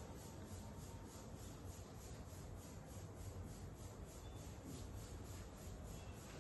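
Quiet room tone: a faint, even background hiss with no distinct events.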